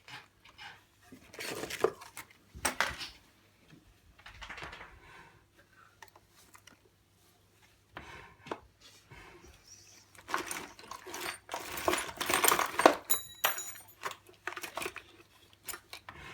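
Kitchen utensils clattering and rattling in a drawer, with irregular knocks and scrapes. The clatter is busiest about ten to thirteen seconds in, where a sharp metallic clink rings briefly.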